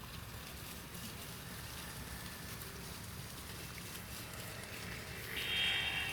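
Steady low rumble, with a goat bleating once for about a second near the end.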